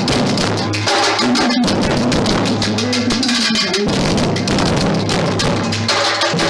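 Percussion music: a group of drums struck in a dense, driving rhythm.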